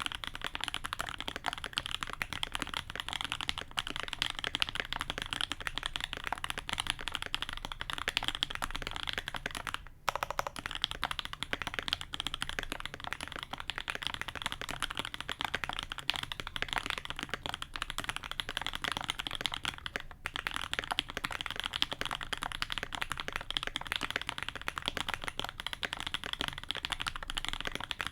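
Fast continuous typing on a custom SG81M mechanical keyboard with lubed H1 linear switches on an FR4 plate, foam-dampened, with GMK keycaps: a dense run of key clacks with brief pauses about ten and twenty seconds in.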